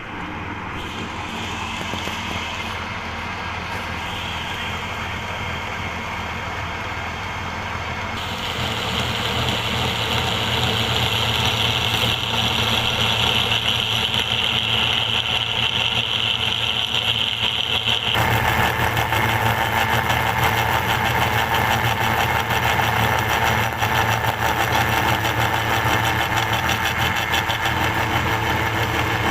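Lathe running steadily with a low hum. About eight seconds in a high, steady whine of cutting joins it; about ten seconds later this gives way to a louder, rougher cutting noise that lasts to the end.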